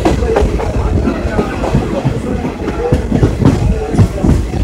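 Passenger train coaches running at speed, heard from an open doorway: a steady low rumble of wheels on track with irregular clattering knocks over rail joints.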